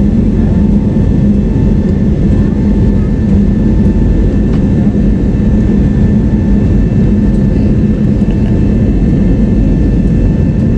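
Steady roar of an IndiGo airliner's engines heard from inside the passenger cabin during the climb after take-off, with a constant low hum and faint steady whine above it.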